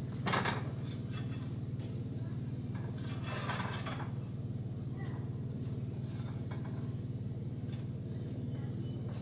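A spatula clinking and scraping against a frying pan as grilled cheese sandwiches are flipped. There are a few short scrapes, the clearest about three to four seconds in, over a steady low hum.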